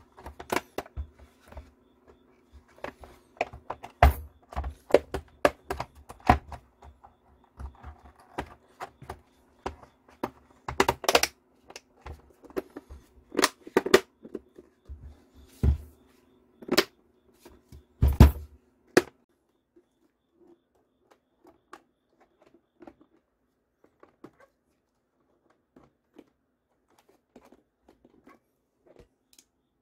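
Plastic battery-pack casing of a Ninebot Segway Mini being handled and pressed shut: a run of irregular clicks and knocks with several louder thunks, over a faint steady hum. About two-thirds of the way through these stop, leaving only faint scattered handling clicks.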